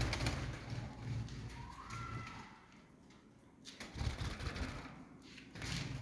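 Caged lovebirds, with one short, soft rising call about two seconds in, over rustling and low rumbling.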